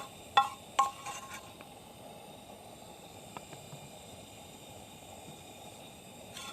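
Two bright ringing clinks of tableware, about half a second apart, followed by a few faint ticks, over a steady low hiss.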